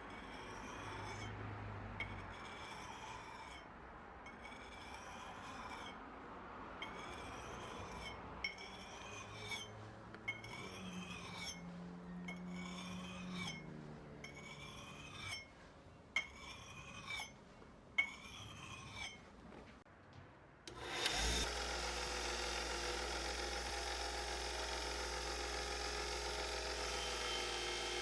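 Hand file strokes scraping on the steel axe head, a regular rasp about once every second and a bit. About 21 s in a motor-driven tool starts up and runs with a steady, louder whir.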